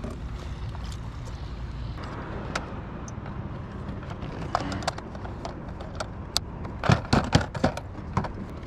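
Scattered clicks and knocks of gear being handled on a kayak, with a burst of louder clatter about seven seconds in, over a low steady rumble.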